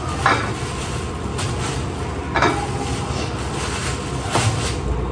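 Oil sizzling steadily in a frying pan, with a plastic bag crinkling a few times as frozen lumpia shanghai are pulled out of it.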